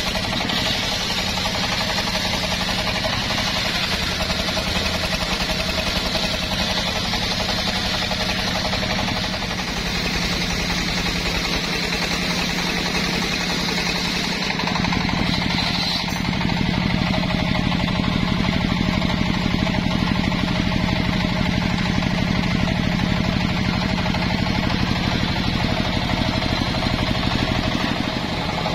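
Engine of a mobile circular sawmill running steadily while the circular saw blade cuts lengthwise through a jowar log. The sound gets louder about halfway through.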